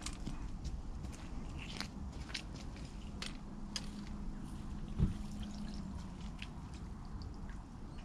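Scattered light clicks and taps, with one thump about five seconds in, from an angler stepping on a muddy bank and handling a carp rod and its rest.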